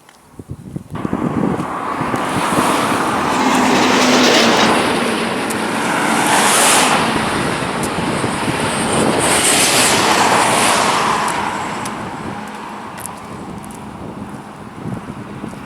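Motor vehicle passing close by on the road: its noise comes in sharply about a second in, swells and eases for several seconds, then fades away.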